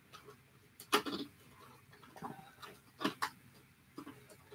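Small plastic toy figures and scooters being handled on a wooden tabletop: a handful of light clicks and taps, the sharpest about a second in and a close pair about three seconds in.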